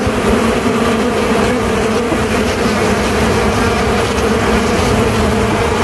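A mass of honey bees buzzing around the opened hive as their brood frames are moved into a new box: a loud, steady hum that holds one pitch.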